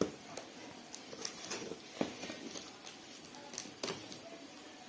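Scissors cutting through packing tape along the seam of a cardboard box, with a scattered series of sharp snips, clicks and crackles of tape and cardboard.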